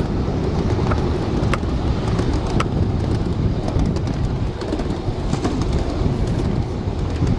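Steady low rumble of a ride-on miniature train rolling along the track, with wind on the microphone and scattered light clicks.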